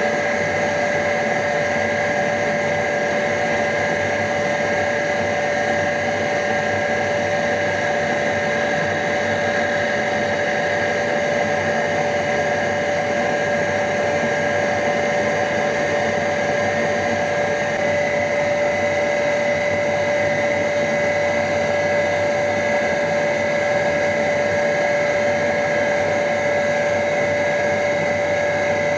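Surface grinder running steadily, its motor and spinning grinding wheel giving a constant whine over a hum, as the wheel is fed gently down onto the end of an end mill to regrind its cutting edges.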